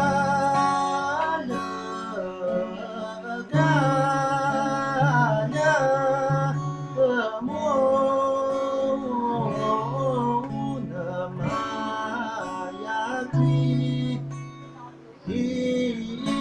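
A folk song sung with vibrato over guitar accompaniment, in phrases of a few seconds separated by short breaths.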